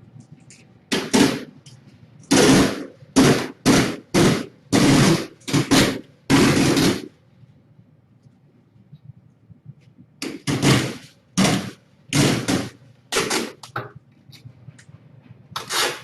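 Adhesive tape being pulled off a roll in a series of short, loud rips. There are two runs of rips with a pause of a few seconds between them.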